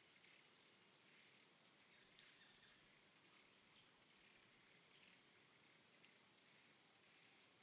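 Near silence: a faint, steady, high-pitched hiss.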